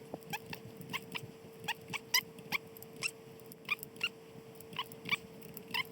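Ratchet of a torque wrench clicking in short, irregular strokes as main stud nuts are tightened to 40 ft-lb, over a faint steady hum.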